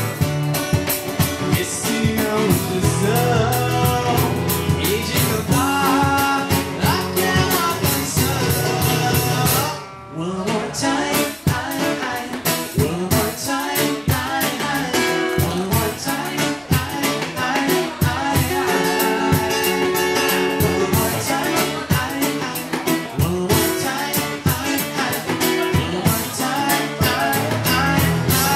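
Live band playing: strummed acoustic guitars with a steady beat and singing. The music drops out briefly about ten seconds in, then comes back in.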